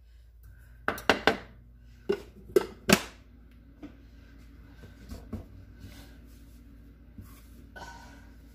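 Small container of flour shaken and knocked over bread dough: about six sharp taps in quick succession in the first three seconds, then soft sounds of hands patting the floured dough.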